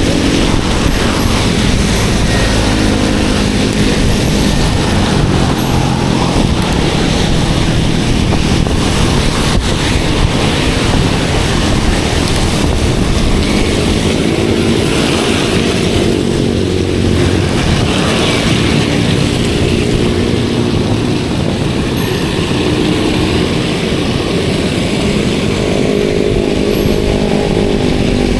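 Steady road noise of a bicycle ride in the rain: wet tyres, rain and wind on an action camera's microphone, with the engines of motor vehicles humming as they pass, several times.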